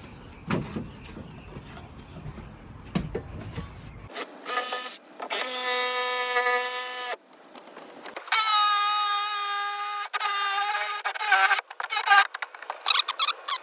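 Jigsaw cutting through a boat's fiberglass deck: after about four seconds of faint clicks, a loud, steady high-pitched whine starts, with short breaks, and rises to a higher pitch about eight seconds in.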